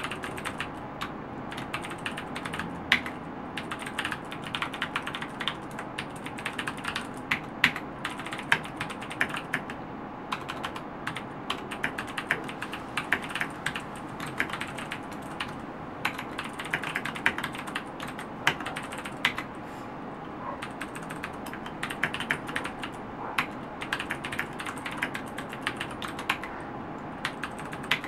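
Continuous typing on a Ducky Zero 2108S mechanical keyboard with clicky Cherry MX Blue switches: a rapid, irregular, noisy clatter of key clicks.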